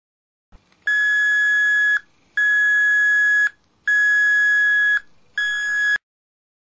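Homemade bedroom clock's electronic alarm sounding through its speaker: a faint click, then four long steady beeps on one high pitch, each about a second long with short gaps, the last one shorter.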